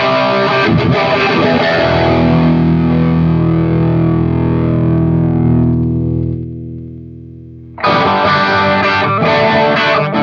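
Electric guitar played with a distorted tone through an M-Vave Mini-Amp preamp pedal. A few seconds of chord playing give way to a chord left to ring and fade, and the playing comes back in hard about eight seconds in.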